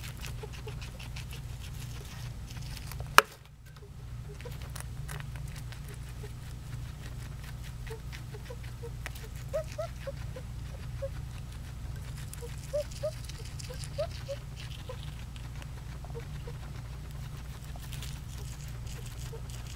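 Guinea pig crunching dry food in a rapid patter of small clicks, with short faint wheezy squeaks from its breathing between the crunches. A single sharp click about three seconds in.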